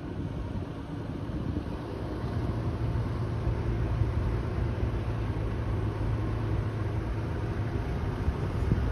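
Engine of a 2021 Toyota 4Runner, its 4.0-litre V6, running under load as the truck drives through soft sand. It is a steady low drone that grows stronger about two seconds in.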